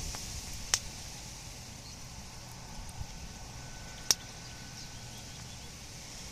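Bonfire burning with two sharp pops from the wood, one early and one about four seconds in, over a steady hiss and a low outdoor rumble.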